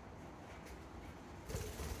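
A budgie's wings flapping as it takes off, a short flurry near the end after a quiet stretch.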